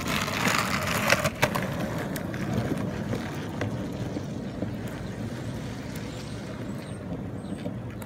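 Skateboard wheels rolling on concrete pavement: a steady rumble with a couple of sharp clicks about a second in. The rumble slowly fades as the board rolls away.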